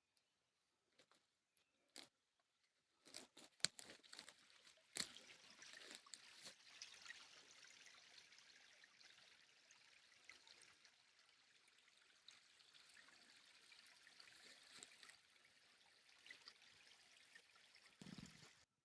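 Faint trickling of a small mountain stream, an even hiss with fine crackle, with a few sharp clicks in the first few seconds; it cuts off just before the end.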